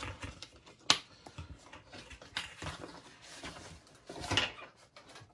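Packaging being handled while a watch box is opened: a sharp click about a second in, scattered lighter taps, and a short rustling scrape near the end.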